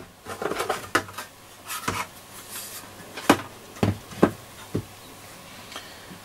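Metal top cover of a Trio R1000 receiver being lifted off and swung open by hand: a series of sharp knocks and light clatters, about half a dozen, over the first five seconds or so.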